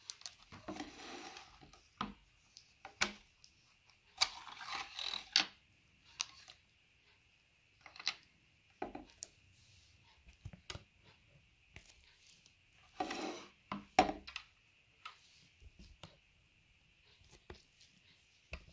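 Metal parts of a hand tying machine (tapetool) handled while its staple magazine is loaded: scattered sharp clicks and knocks, with three longer scraping, rattling stretches as staples and parts slide against the metal.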